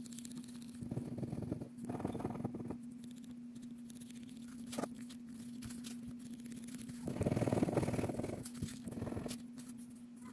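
A plastic scratcher scraping the latex coating off a scratch-off lottery ticket, in several short bouts of scratching. The longest and loudest bout comes about seven seconds in. A steady low hum runs underneath.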